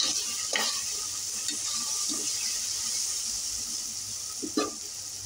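Sliced onions sizzling steadily in hot oil in a pressure cooker as they fry toward browning. There are three short knocks of the stirring spoon against the pot: about half a second in, about two seconds in and near the end.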